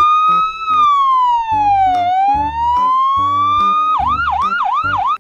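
Electronic siren of a fire-department ambulance on an emergency run. It plays a slow wail that rises, falls and rises again, then about four seconds in switches to a fast yelp of about three sweeps a second.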